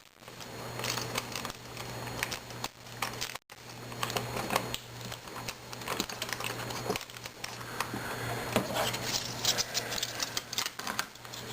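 Rapid, irregular mechanical clicking and rattling from the film-transport mechanism of a Krasnogorsk-3 16mm camera as it is worked by hand, with the sound cutting out briefly about three seconds in.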